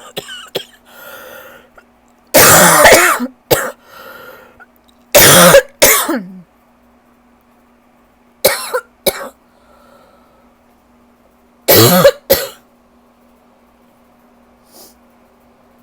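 A person's rough allergy cough: four harsh fits of one to three coughs each, about three seconds apart. It comes from a chest the cougher calls super tight.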